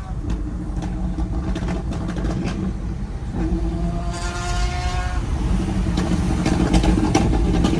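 Pagani Zonda R's V12 engine running, with a short rising rev about four seconds in. Several sharp exhaust cracks sound through it, with a cluster near the end.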